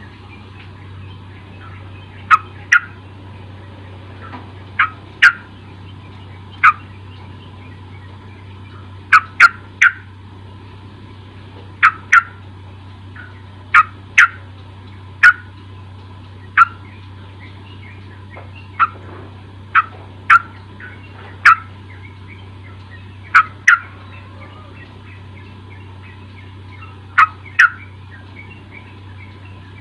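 Yellow-vented bulbul (trucuk) giving short, sharp calls, often in quick pairs, every second or two, over a steady low hum.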